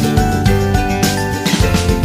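Background music: an upbeat instrumental track with held notes over a steady beat.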